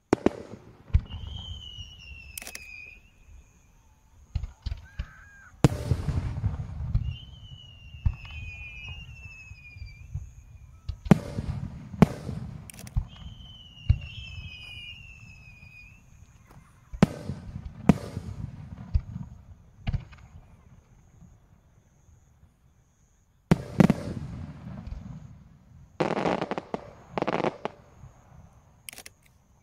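Star mine fireworks salvo: a rapid series of sharp booms from bursting aerial shells, each trailing off in a rumbling echo and crackle, with brief lulls between volleys. High falling whistle-like tones sound three times in the first half.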